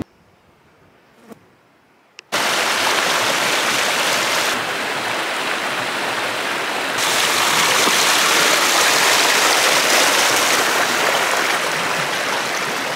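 Near silence with a couple of faint clicks, then from about two seconds in the steady rush of a mountain stream running over stones.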